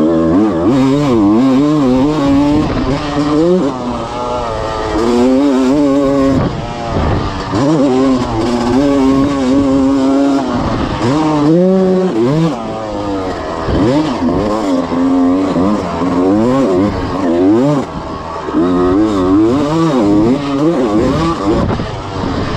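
A 1996 Honda CR250's two-stroke single-cylinder engine being ridden hard, revving up and shifting again and again, its pitch climbing and then dropping over and over. It is on its break-in ride after a full rebuild.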